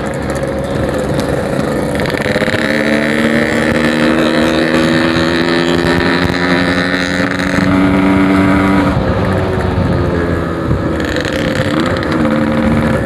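Yamaha RX-King's 135cc single-cylinder two-stroke engine with a packing-type aftermarket exhaust, ridden under throttle: its pitch climbs from about two seconds in, holds, drops off around nine seconds, then rises again near the end.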